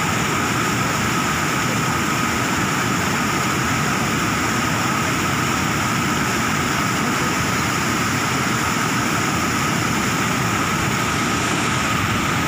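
Muddy floodwater pouring over a weir into a churning pool: a steady, unbroken rush of water.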